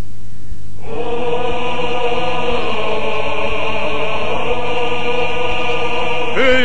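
A brief hiss, then a group of voices holding a sustained drone chord as the song's introduction. Near the end a solo male voice comes in over it, singing with vibrato.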